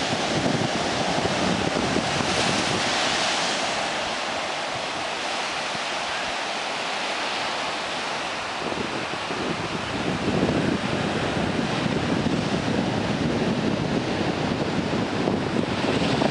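Atlantic surf breaking and washing up the beach in a steady hiss, with wind rumbling on the microphone, stronger in the second half.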